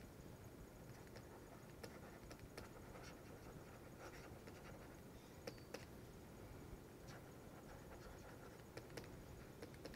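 Faint taps and scratches of a stylus writing on a tablet screen, with a few sharper ticks about halfway through and again near the end.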